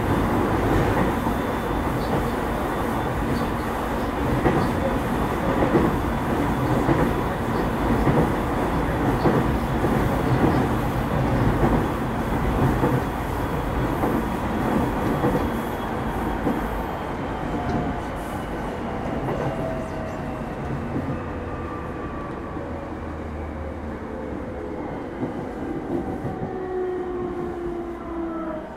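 JR East 209 series 500-subseries electric train heard from inside the carriage: steady rumble of wheels on the track at speed. Over the second half it grows quieter, with the motor whine falling in pitch as the train slows.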